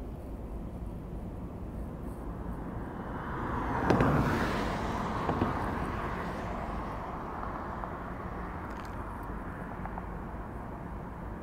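A road vehicle passing close by, swelling to a peak about four seconds in and then fading away, over a steady outdoor traffic rumble, with a couple of sharp clicks near the peak.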